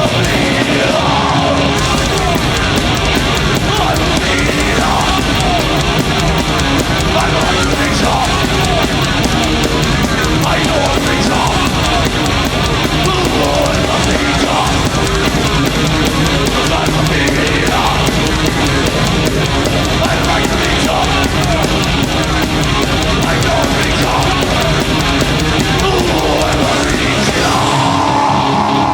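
A live heavy metal band playing loud and fast. A steady held note comes in near the end.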